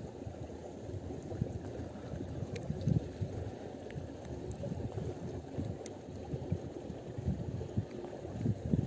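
Wind buffeting the microphone as a low, fluctuating rumble, gusting louder near the end, with a few faint ticks.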